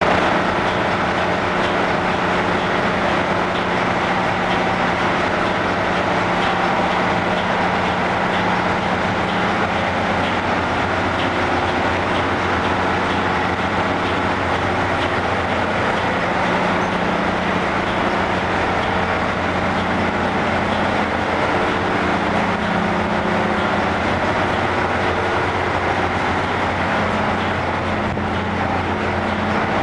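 1967 Doxford four-cylinder opposed-piston marine diesel engine (eight pistons, turbocharged) running steadily at constant speed: a loud, even engine-room drone with a low hum and a busy mechanical clatter over it.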